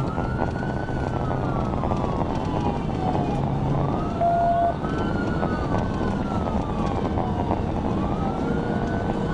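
Police car sirens in wail mode, two of them rising and falling slowly out of step with each other, over the steady rumble of the cruiser's engine and tyres on the road.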